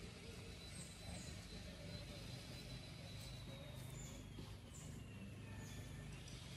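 Faint outdoor background: a steady low rumble with a few short, faint high chirps.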